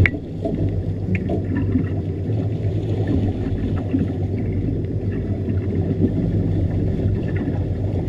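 Boat engine running steadily with water churning and splashing around the stern, and a single sharp knock about at the start.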